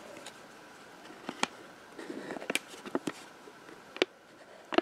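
Paper and card being handled: a series of short, light clicks and taps, with a soft rustle of paper around the middle.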